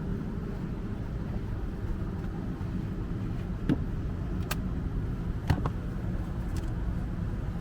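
Steady low rumbling background noise, with a handful of short sharp clicks and knocks in the middle, about four or five spread over three seconds.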